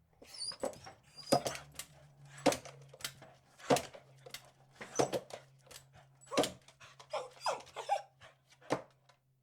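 A beagle barking in a run of sharp barks, the loudest about once a second, with smaller barks in between.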